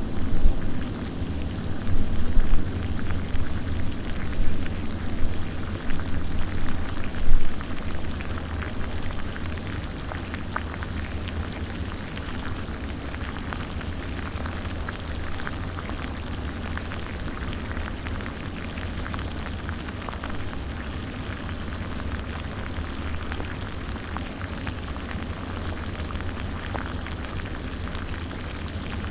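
Small pot of water at a rolling boil, a dense steady bubbling with many small pops. It is louder and more uneven for about the first eight seconds, then settles into an even bubble.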